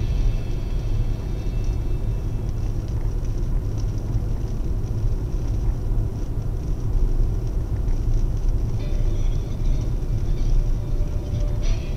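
Steady low rumble of a car on the move, tyre and engine noise picked up inside the car.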